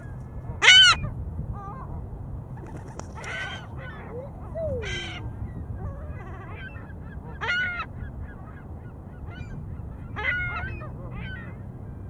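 Geese honking: a loud honk about a second in, then several more single honks spread out, over a low steady rumble.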